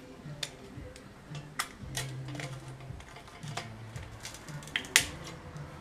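Irregular sharp metallic clicks and clinks as an FMF Powercore motorcycle muffler and its fittings are handled, the loudest about five seconds in, over soft background music with a low bass line.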